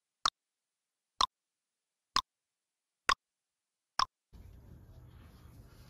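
Countdown timer sound effect: five short ticks about a second apart with dead silence between them, then faint room noise near the end.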